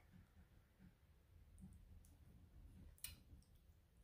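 Near silence: quiet room tone, with a single faint, sharp click about three seconds in.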